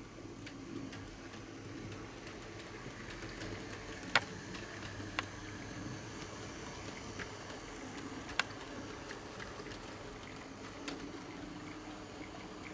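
HO-scale model steam train running along the layout: a steady hum of the locomotive's motor and the wheels rolling on the track, with a few sharp clicks, the loudest about four seconds in and another about eight seconds in.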